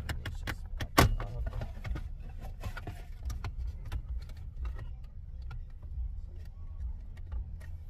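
Scattered clicks, taps and light rattles of hands handling plastic dashboard trim and parts in a car's centre console, with one sharp click about a second in, over a steady low rumble.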